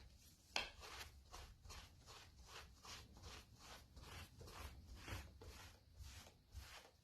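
Faint, rhythmic rubbing strokes of a dye applicator over vegetable-tanned leather, about three strokes a second, as black leather dye is worked into a pouch.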